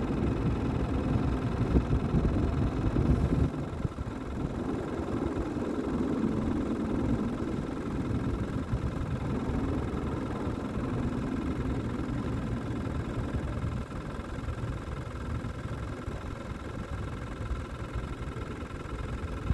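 A steady mechanical hum, with a deep low rumble that drops away about three and a half seconds in.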